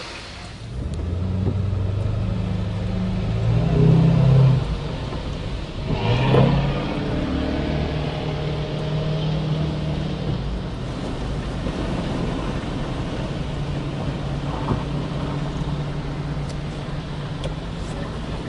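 A motor engine running, revving up to a peak about four seconds in and again briefly around six seconds, then settling into a steady run.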